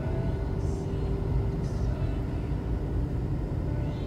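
Steady low rumble of a car driving along a road, engine and tyre noise heard from on board.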